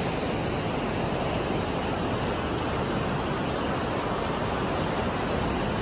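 Ocean surf washing up on a sandy beach: a steady rushing wash of breaking waves and foam.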